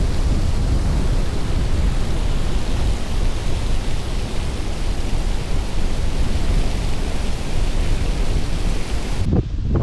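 Strong gusting wind buffeting the microphone: a loud, steady rush of noise with heavy low rumble.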